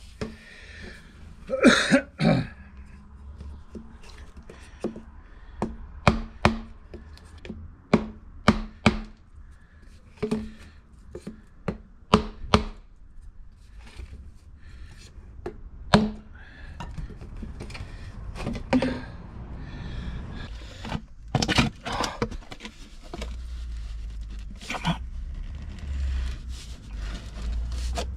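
Irregular sharp knocks and bangs on a plastic drain pipe fitting that is stuck solid, as it is worked loose from the pipe, some twenty knocks with uneven gaps between them.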